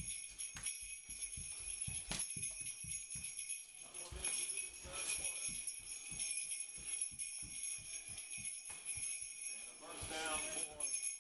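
Sleigh bells jingling steadily, with soft low thumps repeating underneath.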